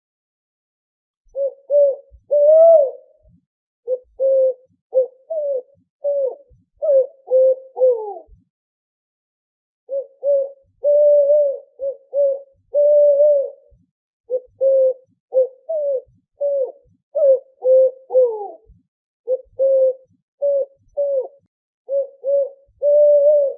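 Owl hooting: bouts of short, low hoots in quick succession, several ending in a falling slide, with brief pauses between the bouts.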